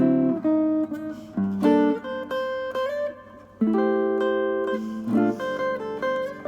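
Solo guitar playing chord melody: full chords struck one after another and left to ring, with the melody on top and a short upward slide in the melody note about halfway through.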